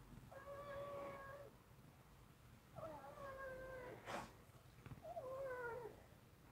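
A kitten meowing three times, each meow about a second long, the last one wavering and then falling in pitch. A short click comes between the second and third meow.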